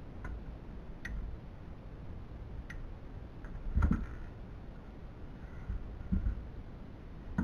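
Scattered light clicks and a few dull knocks, the loudest about four seconds in and again about six seconds in: parts and tools being handled while a DLP television is taken apart.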